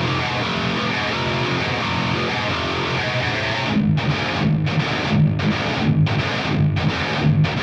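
Heavily distorted 8-string electric guitar, an Ibanez M80M played through Helix Native's Line 6 Badonk amp model with a Tube Screamer in front, in a downtuned metal part. A held, ringing chord gives way about four seconds in to a run of short, stopped chugs with brief gaps between them, cutting off suddenly at the end.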